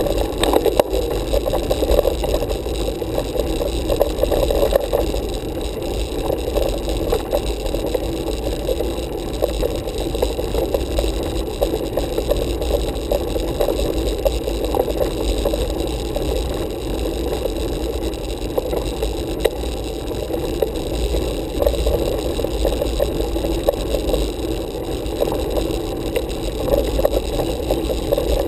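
Steady, muffled rumble and rattle of a road bike's tyres and frame on rough asphalt, picked up through a camera mounted on the handlebars.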